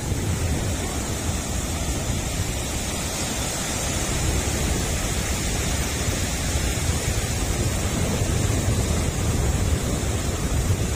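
Surf washing and breaking in the shallows, a steady hiss, with wind buffeting the microphone.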